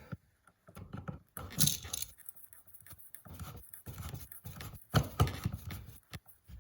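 Old-work plastic electrical box scraping and knocking against the drywall cutout as it is worked into the wall, with a longer scrape about one and a half seconds in and two sharp knocks about five seconds in.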